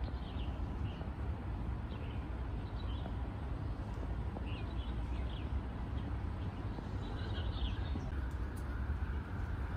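Outdoor ambience: scattered short bird chirps over a steady low rumble.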